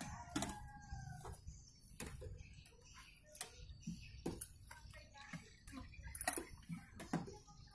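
Faint, irregular clicks and taps, with a brief faint tone in the first second or so.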